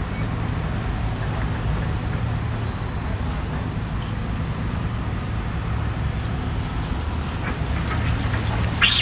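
Excavator's diesel engine running steadily with an even low drone. A brief sharp, high sound comes right at the end.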